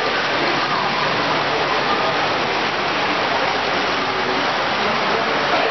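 Steady, even noise of a model train show: a model passenger train running on the layout under a wash of background chatter from the crowd.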